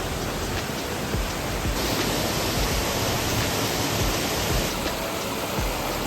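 A steady rushing noise, like running or falling water, that gets brighter and hissier for a few seconds in the middle.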